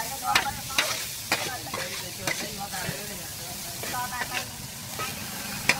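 Noodles being stir-fried on a large steel pan: two metal spatulas scrape and clink against the pan at an irregular pace, over a steady frying sizzle. One sharp clink near the end stands out.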